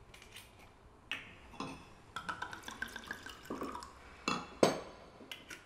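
Wine poured from a bottle into a glass, the gurgle rising slightly in pitch for about a second, between light clinks and knocks of glass and bottle on the counter; the loudest knock comes about four and a half seconds in.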